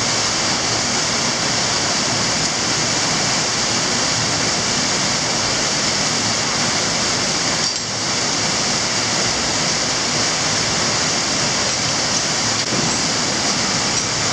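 Steady rushing of a mountain torrent's cascade pouring over rock, a dense unbroken hiss of falling water.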